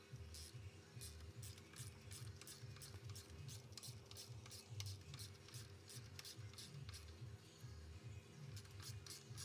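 Ratchet wrench clicking in short, uneven runs, about two to three clicks a second, as bolts on a 4L60E automatic transmission's valve body are loosened, over a faint low hum.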